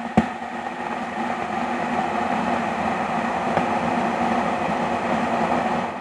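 Stovetop kettle at the boil: a steady rushing noise that swells over the first second, with one sharp click just after it begins.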